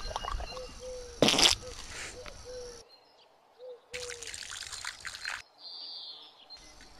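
Water poured from a copper jug, splashing and trickling into cupped hands and onto a face being washed. Short repeated chirps come in the first half, and the sound drops to near silence twice.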